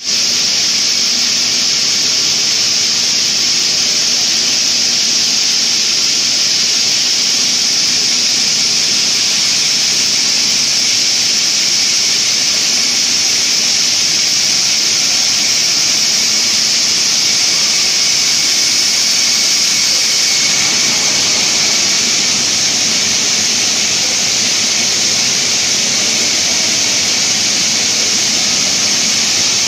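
Steel wire drawing machine running at speed: a loud, steady high hiss with a fainter lower hum underneath, which shifts slightly about twenty seconds in.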